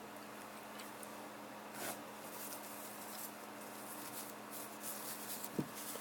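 Quiet room tone with a steady low electrical hum and a few faint small ticks and rustles.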